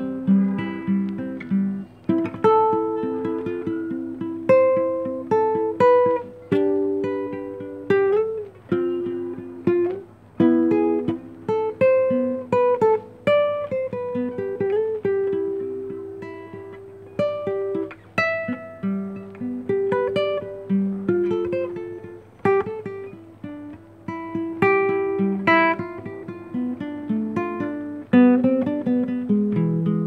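Nylon-string classical guitar played fingerstyle: a slow melody of plucked single notes and chords over bass notes, each note ringing and fading, with brief breaks between phrases.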